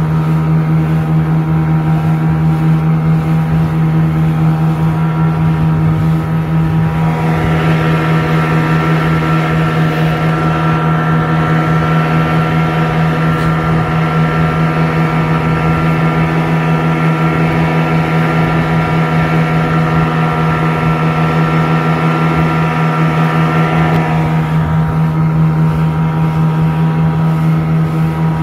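Outboard motor running steadily at high speed, driving a loaded fishing boat, with water rushing along the hull. The engine holds a constant pitch throughout, and its higher tones are stronger from about 7 to 24 seconds in.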